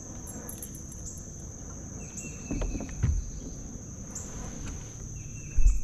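Insects calling steadily in a high, continuous trill, with a second, lower buzzing call that comes and goes. A few dull thumps, the loudest near the end.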